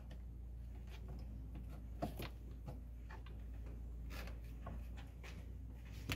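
Faint, scattered clicks and rustles of a thin wire being handled and pushed along plastic car trim, over a steady low hum.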